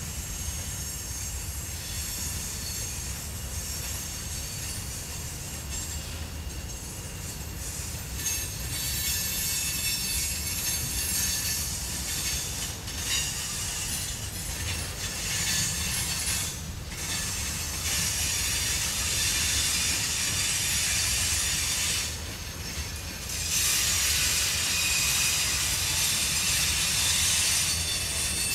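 Freight train cars rolling past: a steady low rumble of wheels on rail with a high-pitched wheel squeal. The squeal grows about eight seconds in, drops away briefly twice, and is loudest near the end.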